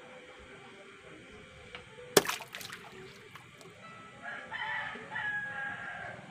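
A rooster crowing once, a crow of about two seconds in the second half. A sharp click about two seconds in is the loudest sound.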